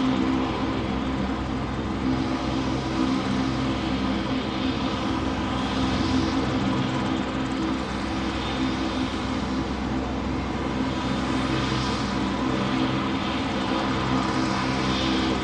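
Steady engine drone: a low hum of several held tones over a wash of noise, unchanging.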